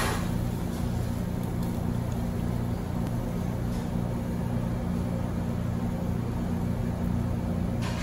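Steady low hum of restaurant ventilation machinery, with a few faint clicks near the start and near the end.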